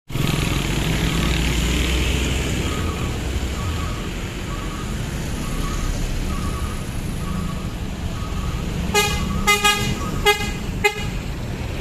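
A large vehicle's engine runs with a steady low rumble while a faint beep repeats a little under twice a second. Near the end a horn gives about five short blasts in quick succession.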